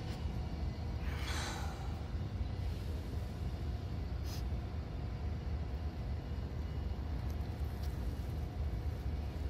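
Steady low outdoor rumble, like wind on the microphone. About a second in comes a breathy whoosh, with a short hiss around four seconds and a few faint leaf-handling ticks near the end.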